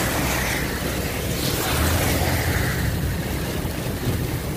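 Heavy rain and car tyres on a flooded road, a steady wash of noise over a low rumble of the moving car and wind.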